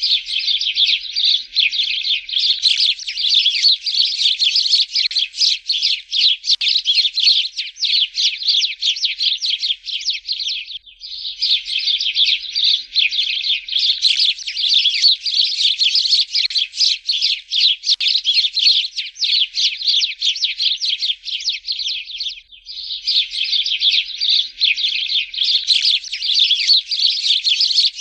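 Sparrows chirping in a rapid, unbroken stream of high chirps, in long bouts that break off briefly twice, about 11 and 22 seconds in.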